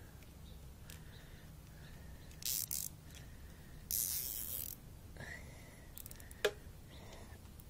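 Nylon zip tie being pulled tight through its ratchet catch: a short zip about two and a half seconds in and a longer one about a second later, then a sharp click.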